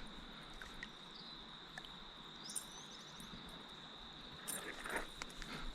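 Faint steady high-pitched drone of insects in the background, with a few soft knocks and splashes near the end.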